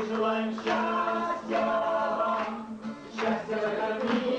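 Small group of men singing a song in Russian in harmony, with strummed acoustic guitar accompaniment.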